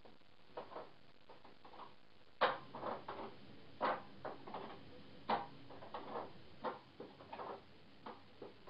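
Plastic clicks and rattles of ink cartridges being unclipped and lifted out of an Epson Stylus Photo 1400 printer's carriage: a run of irregular sharp clicks, the loudest about two and a half seconds in.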